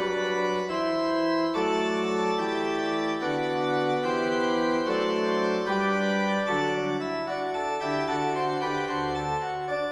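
Background music: sustained organ-like keyboard chords changing every second or so.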